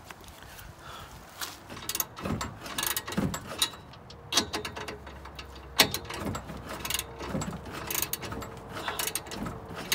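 Ratchet spanner clicking in repeated short runs as a socket turns a nut on an exhaust clamp.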